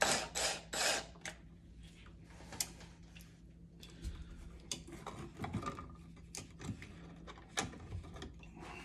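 Scattered light clicks and scrapes of hand work on a wall switch, as its wires are taken off the terminals with a screwdriver.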